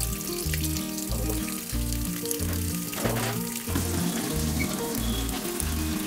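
Tap water pouring in a steady stream into the wash tub of a semi-automatic washing machine as it fills, under background music with a repeating bass line.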